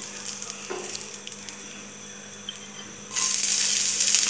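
Hot oil hissing faintly in a kadai with dried red chillies and a bay leaf. About three seconds in, chopped garlic is tipped in and the oil suddenly sizzles loudly.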